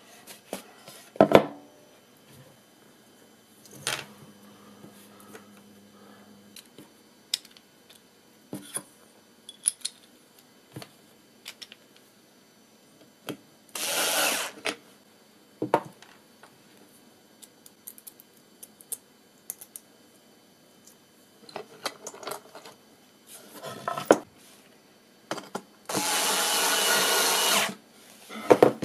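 Bosch cordless screwdriver driving wood screws into a wooden frame: one short run of about a second midway and a longer run of about two seconds near the end. Scattered clicks and knocks of parts and screws being handled come in between.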